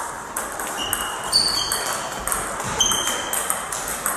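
Table tennis rally: the plastic ball clicking off the bats and the table in quick alternation, several strikes a second, some hits ringing briefly in the hall.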